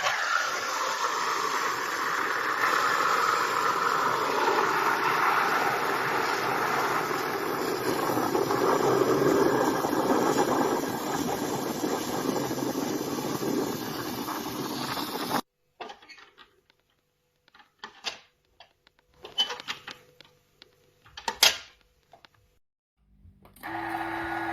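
Bean-to-cup coffee machine grinding coffee beans with an even, noisy whirr that stops abruptly after about fifteen seconds. A few scattered clicks and knocks follow, then a steady pump hum starts near the end.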